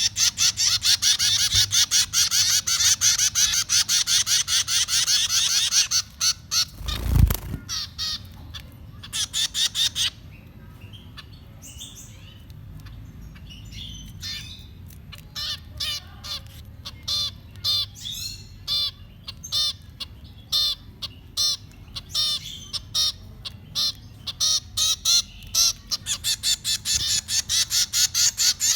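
Baby birds giving rapid, high begging chirps, several a second, the sound nestlings make when they are being fed. The chirping thins out after about six seconds, with a single low thump about seven seconds in, then builds back to fast, steady chirping in the second half.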